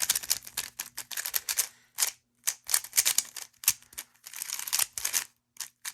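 A Rubik's Cube being turned at speed during a timed solve: rapid runs of plastic layer clicks, with brief pauses about two seconds in and near the end.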